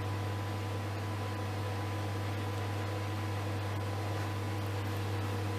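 Microwave oven running: a steady low hum with an even fan-like whoosh, unchanging throughout.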